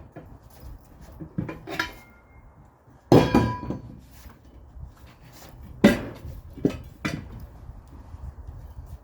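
Metal clanking from work on a manual tire changer: about six separate knocks. The loudest comes about three seconds in and rings briefly, and another strong one comes near six seconds.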